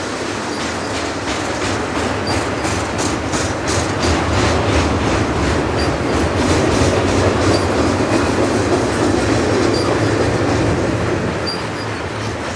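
Double-stack intermodal well cars of a freight train rolling past: a steady rumble of steel wheels on rail, with a quick run of clicking between about half a second and four seconds in, swelling slightly in the middle.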